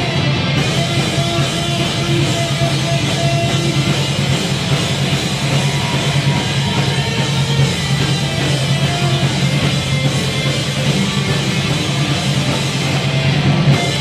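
Live heavy metal band playing loudly and without a break: electric guitars, bass guitar and drum kit.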